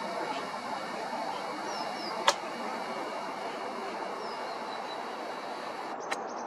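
Steady outdoor background noise with a few faint, short bird chirps. A single sharp click a little over two seconds in, and a smaller click near the end.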